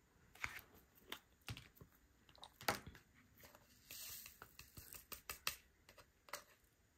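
Faint, irregular clicks and taps of resin diamond drills and a drill pen against a plastic diamond painting tray, with a short rattle of drills sliding across the tray about four seconds in.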